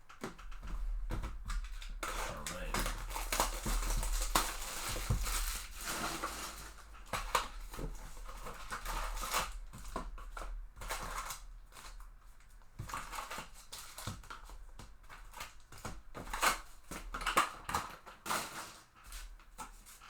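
Hands handling trading-card packaging: plastic wrap and foil packs crinkling and rustling against cardboard, with scattered sharp clicks and taps. It is loudest in the first several seconds and lighter after that.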